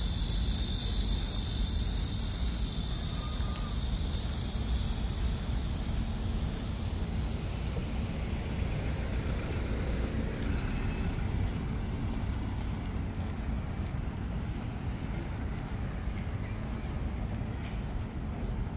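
Insects buzzing in a steady high drone that fades out about eight seconds in, over a steady low rumble of road traffic.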